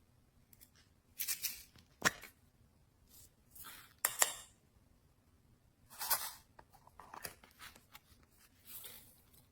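Slime being worked by hand: short, crackly, sticky bursts every second or two, with sharp clicks about two seconds in and again near four seconds.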